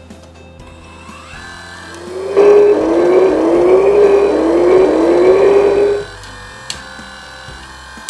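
Hydraulic pump of a K988-100s RC wheel loader winding up, then running loudly under load for about four seconds while the grapple's cylinders are driven, its pitch rising in about five repeated sweeps. A few sharp clicks follow near the end.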